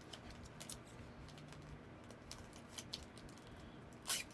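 Faint light clicks and taps of hands handling a clear plastic magnetic card holder and sliding a card cover across it, with one sharper click near the end.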